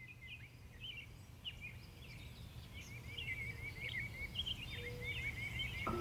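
Several small birds chirping and trilling, many short overlapping calls, over a steady low rumble; the whole grows gradually louder.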